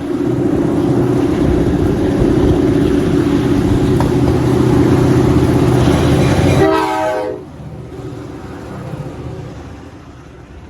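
Diesel freight locomotive air horn held in one long blast over the rumble of the passing train. The horn cuts off about seven seconds in, its pitch stepping down as it stops. Wind noise on the microphone follows.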